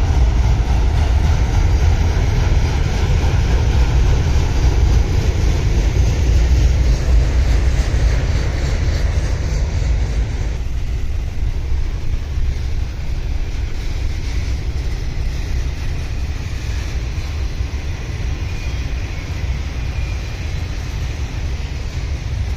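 Norfolk Southern freight train's autorack cars rolling past at close range: a steady rumble of wheels on rail that eases a little about ten seconds in.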